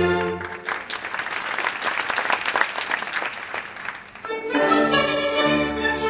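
Orchestral string music breaks off and an audience applauds for about three and a half seconds; then string music starts again.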